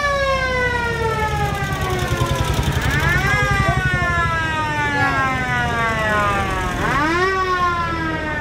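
A siren wails: its pitch rises quickly, then slides slowly down, three times. Beneath it runs the low rumble of old military vehicle engines driving past.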